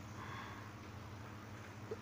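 Faint steady background noise with a low hum, with no distinct event.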